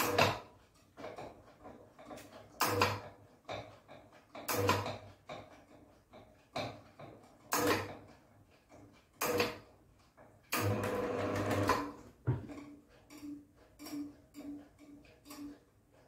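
Clicks and knocks from adjusting the limit screw on a roller door's motor with a hand adjusting tool, one every couple of seconds. About two-thirds of the way through there is a longer rattle of about a second. Near the end comes a run of quicker, lighter ticks, about three a second.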